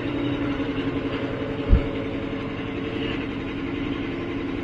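Tractor diesel engine, most likely the Mahindra Arjun Novo 605 DI's, running steadily at an even speed. There is one short low thump nearly two seconds in.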